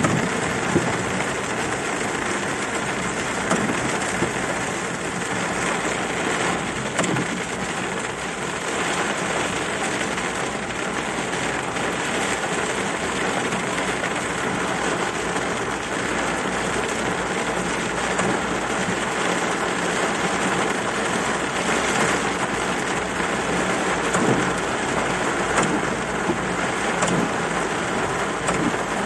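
Heavy rain hitting the car's roof and windshield, heard from inside the car as a dense, steady patter of many small impacts.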